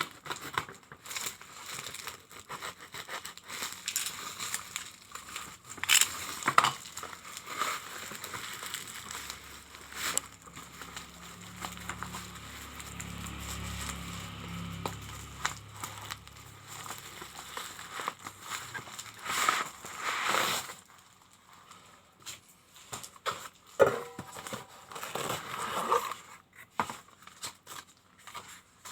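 Plastic packaging crinkling and rustling as a parcel is handled and torn open, with sharp irregular clicks and crackles. A low hum runs for several seconds in the middle.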